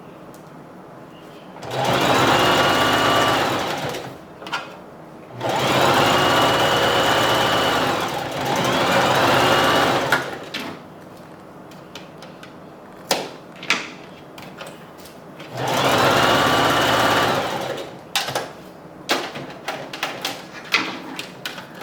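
Sewing machine running in three bursts of a few seconds each, stitching hair tracks onto a wig cap, with short clicks and taps between the runs.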